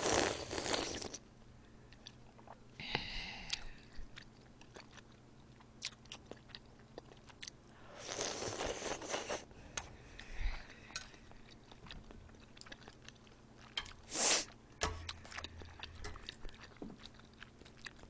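Close-miked eating: slurps of katsuo udon broth sipped from a ladle at the start and again around eight seconds, with soft chewing clicks in between and a short sharp sound near the end.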